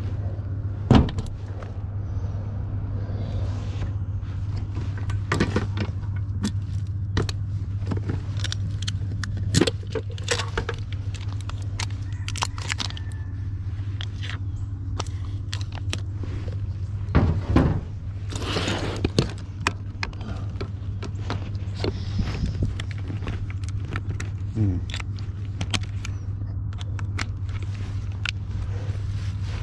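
Clicks, knocks and rattles of a plastic electrical enclosure and hand tools being handled, with a cluster of louder clatter a little past the middle, over a steady low hum.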